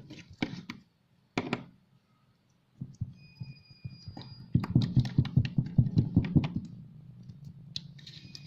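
Hands handling a sample of slime and its plastic container: scattered clicks, then a quick run of sharp clicks and soft squishing thuds for about two seconds, fading out.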